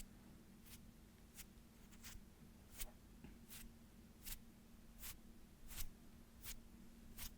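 ASMR hand sounds: short, soft swishes of hands brushing or rubbing, about ten in an even rhythm, one roughly every three-quarters of a second.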